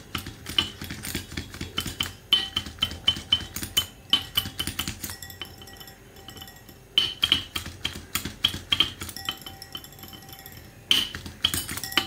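A metal wire whisk beating yogurt in a glass bowl, its wires clinking rapidly against the glass in bursts, with two short lulls.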